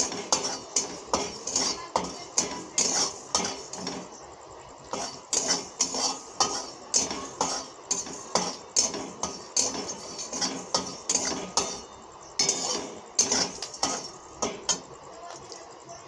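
Metal spatula scraping and knocking against a metal pan about twice a second while spices are roasted, with two short pauses.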